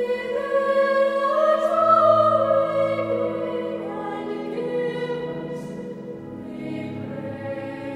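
Background music: slow choral singing with long, held notes and slowly changing chords.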